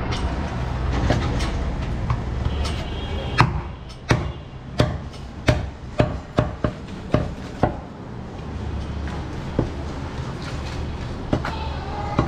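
Butcher's cleaver chopping through a goat's ribcage on a wooden stump chopping block: a quick run of about a dozen sharp chops, roughly two a second, starting a few seconds in, then a few single chops later. A steady low hum runs underneath.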